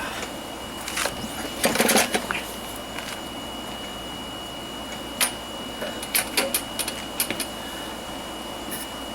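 Scattered clicks, knocks and rattles of a lawnmower and its parts being handled and moved by hand. The loudest cluster comes about two seconds in, and another comes around six to seven seconds in.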